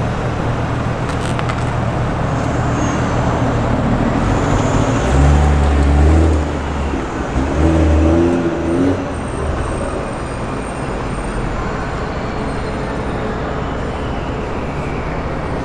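Car driving in city traffic: a steady engine and road noise, with a deep engine note swelling twice, about five and eight seconds in.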